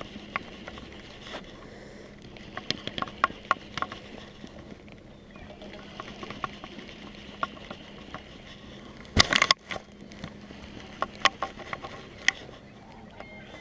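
Scattered light clicks and ticks of a baitcasting reel and rod being handled, over a faint steady hum, with a louder knock and rustle about nine seconds in.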